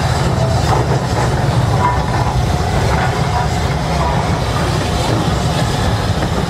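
Steam train rolling slowly past on the adjacent track, an SECR-liveried locomotive and Pullman coaches, its wheels rumbling and clicking over the rail joints with a few brief squeals. A standing BR Standard 5MT steam locomotive hisses steam under it.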